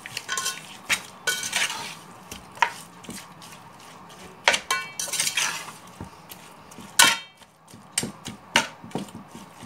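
Metal slotted spoon stirring raw mutton in a metal pot: irregular scrapes and clinks of the spoon against the pot, a few ringing briefly, the loudest strike about seven seconds in.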